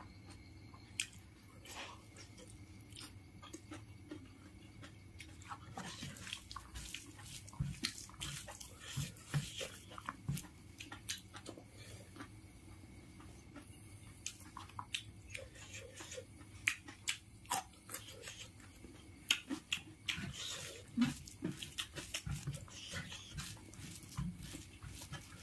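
Close-up eating sounds: wet chewing and lip smacks, with fingers squishing rice against a banana leaf. These come as irregular clicks that get busier after about six seconds.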